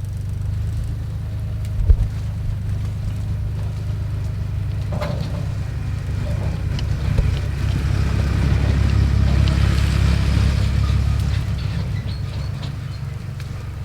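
A vehicle engine running steadily, growing louder around the middle and then easing off, with a single knock about two seconds in.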